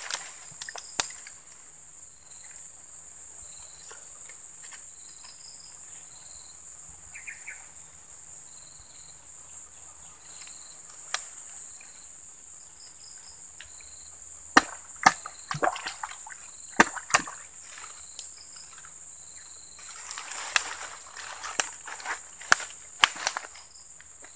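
Twigs and dry stems snapping and leaves rustling as swamp undergrowth is handled by hand, with a run of sharp snaps in the second half. A steady high insect buzz with short repeated chirps runs underneath.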